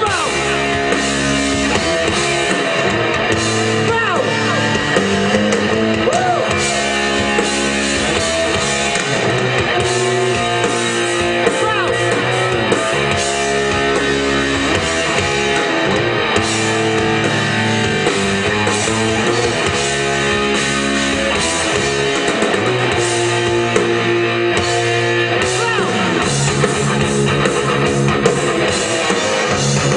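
Rock band playing live, loud and continuous, with electric guitars and drums.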